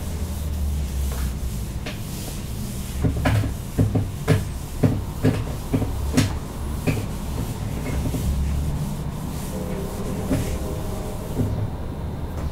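Whiteboard eraser wiping a board: a run of short rubbing strokes, thickest between about three and six seconds in, over a steady low hum.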